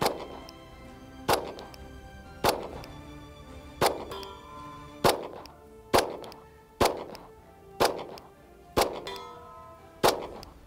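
A 9mm Glock 47 pistol fired in slow, aimed single shots, about ten shots at roughly one a second. Background music plays underneath.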